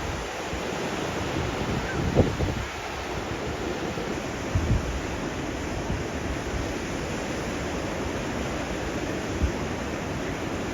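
Steady rushing noise of wind and sea surf, with gusts thumping on the microphone a few times.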